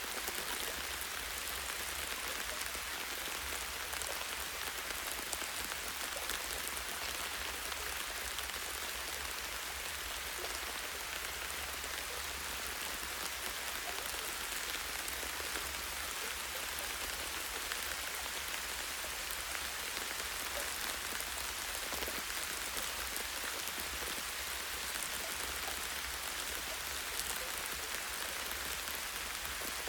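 Light, gentle rain falling steadily on a tree branch: an even hiss of small drops with faint individual drop ticks.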